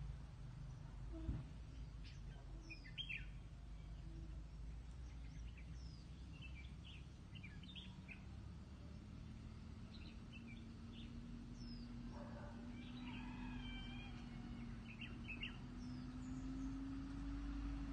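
Wild birds chirping and calling, with short sharp notes scattered throughout and a longer patterned call about two-thirds of the way in. Underneath is a faint low hum that sets in about halfway and slowly rises in pitch, and there is a single soft thump about a second in.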